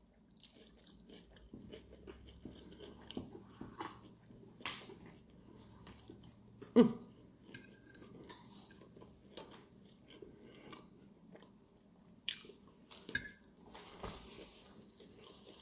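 A person chewing and biting a candy bar, with soft mouth sounds and scattered short clicks; one brief louder sound about seven seconds in.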